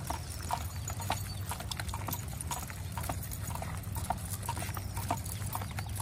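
A large pack of leashed dogs walking on an asphalt street: a busy, irregular patter of claws and footsteps clicking on the pavement. Under it runs a low, steady rumble.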